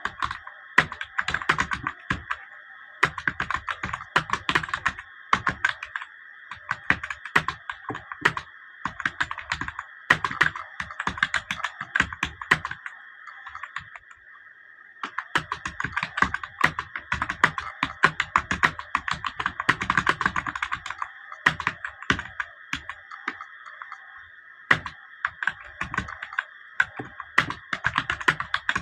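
Fast typing on a computer keyboard: quick runs of keystrokes with short breaks, and a longer lull about halfway through.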